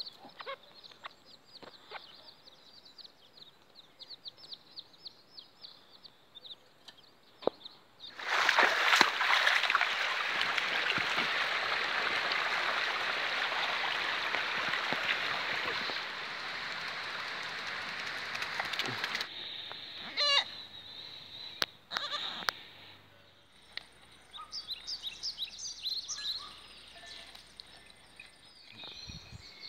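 Chicks peeping rapidly at a high pitch for the first several seconds. A loud steady hiss follows for about ten seconds, then quieter scattered calls and clicks.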